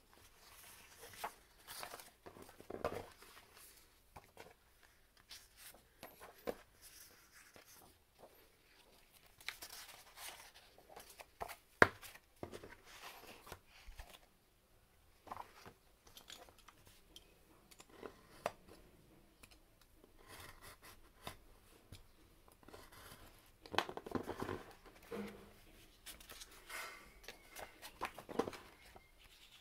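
Sheets of paper and card rustling and sliding against each other as they are sorted and stacked on a wooden board, with scattered light taps. A single sharp tap about twelve seconds in is the loudest sound, and the rustling grows busier near the end.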